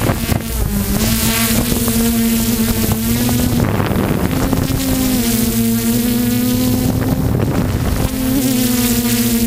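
DJI F450 quadcopter's motors and propellers buzzing steadily in flight, the pitch dipping and shifting as the throttle changes around four seconds in and again near the end.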